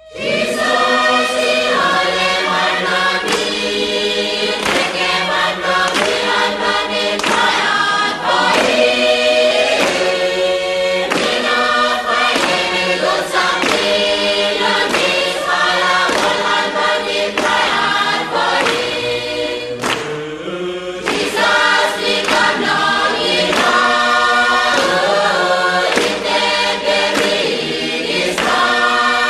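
Background music of a choir singing.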